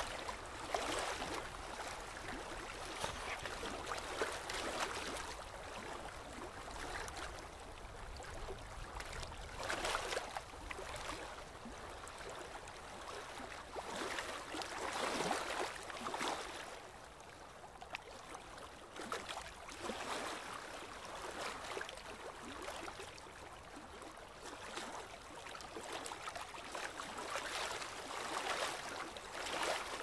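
Steady rushing noise, like running water or surf, swelling and easing every few seconds.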